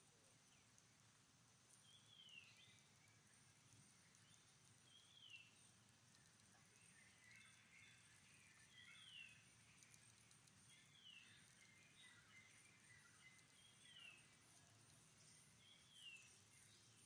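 Faint, short high-pitched animal call that slides down in pitch, repeated about every two seconds, over a faint steady high hiss.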